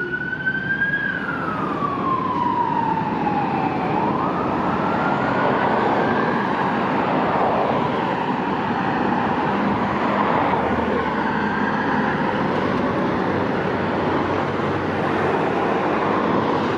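Fire engine's siren wailing in slow rises and falls, growing fainter after the first few seconds until only faint sweeps are left in a steady rush of road noise.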